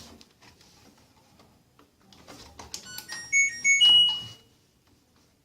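Washing machine control panel playing its short electronic beep tune: a few soft clicks, then a quick run of high beeps stepping in pitch, ending on one longer held beep about four seconds in. It sounds as the wash is paused and the door stays locked.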